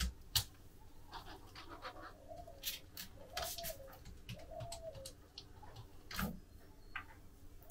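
Faint pigeon cooing in the background, three short phrases around the middle, with a few scattered faint clicks and a soft knock near the end.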